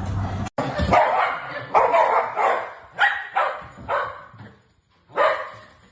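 A dog barking: a string of short, sharp barks over about three seconds, a brief pause, then one more bark near the end.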